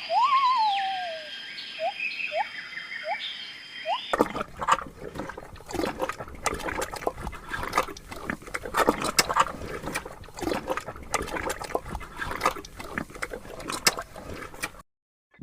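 Short rising chirps and whistled tones for about the first four seconds, then water splashing and trickling unevenly for about eleven seconds, which cuts off suddenly near the end.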